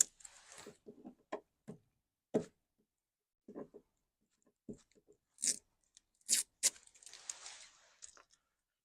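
Masking tape being peeled off and crumpled, with paper decal backing handled. Irregular sharp crackles and rustles, with a longer tearing rustle about seven seconds in.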